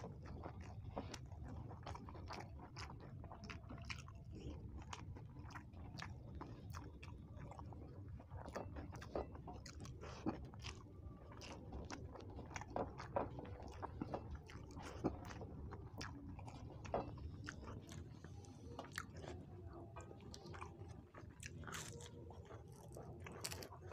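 Close-up eating sounds: a person chewing mouthfuls of rice and egg curry eaten by hand, with many irregular wet mouth clicks and smacks, and fingers mashing rice on a steel plate. A low steady hum runs underneath.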